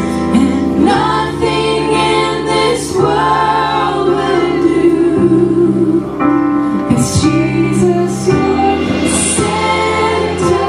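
A band playing a gospel scripture chorus, with voices singing together over sustained instrumental chords.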